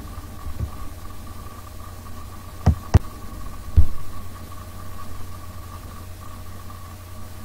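A steady mechanical hum, with three sharp knocks close together about halfway through, as of a tool or wooden boards set down on a folding work table.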